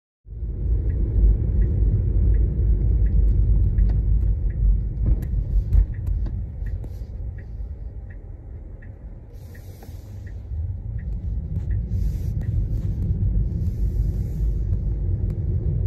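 Cabin noise inside a Tesla driving on a wet road: a low rumble of tyres on wet pavement, dipping as the car slows through a turn and building again as it pulls away. Over the first half the turn signal ticks about twice a second, then stops.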